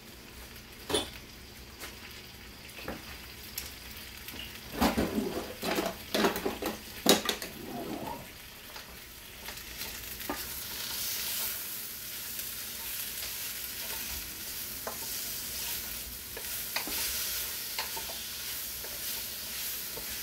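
Wooden spatula knocking and scraping against a wok while stir-frying mushrooms and bean sprouts, a cluster of clatters about five to eight seconds in. After that a steady sizzle of the vegetables frying in oil on high heat builds up.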